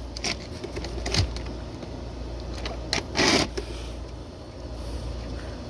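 Handling noises from plugging a sensor cable into a plastic control box: a few short clicks and a brief rustling scrape about three seconds in, over a steady low hum.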